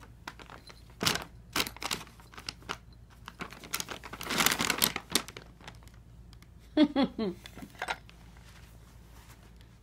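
Brown paper bag crinkling and rustling in irregular crackles as a cat pushes its way inside, densest about four to five seconds in. A short burst of a person's voice comes about seven seconds in.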